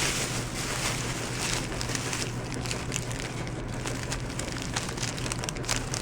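Crinkling and rustling of plastic packets and small tackle being rummaged through in a bucket of fishing gear, with many small irregular ticks, over a steady low hum.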